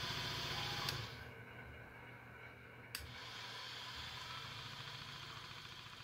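Faint steady low hum that drops a little about a second in, with two small clicks, one about a second in and one about three seconds in.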